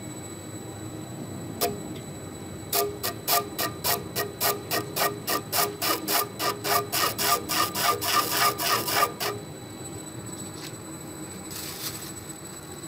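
Pencil point ticking against a black walnut platter blank spinning on a wood lathe: one tick, then a fast, even run of ticks at about four to five a second that quickens slightly and stops after some six seconds. The lathe's motor hums steadily underneath.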